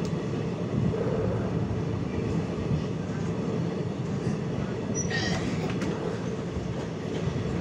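Farakka Express passenger coach running at speed, heard from the open window: steady noise of the wheels on the rails, with a brief high squeal about five seconds in.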